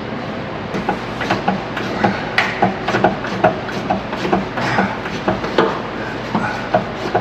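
Hand ratchet and socket clicking in short, repeated strokes, about two to three a second, as the door hinge bolts are worked loose. The clicking starts about a second in.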